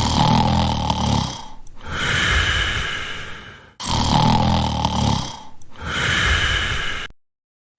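A person snoring, in two repeated cycles, each a low rumbling breath in followed by a breath out with a high whistling tone. It stops shortly before the end.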